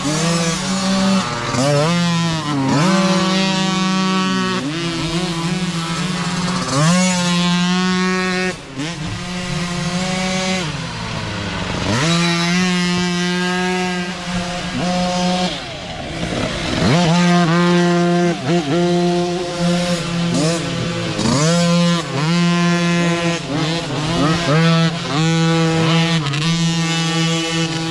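Micro dirt bike engines revving up and dropping back again and again as several small bikes climb a rough trail and pass one after another, their high-pitched revving overlapping.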